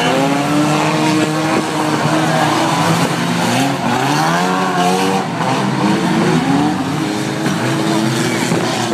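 Engines of several banger racing cars revving as they race round the track, their overlapping pitches rising and falling continuously.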